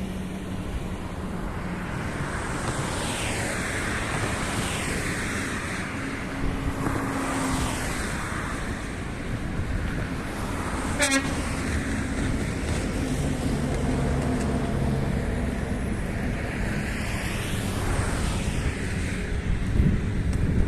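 Road traffic: cars and trucks passing one after another, their engines and tyres rising and falling as each goes by over a steady low rumble. There is one brief sharp sound about eleven seconds in.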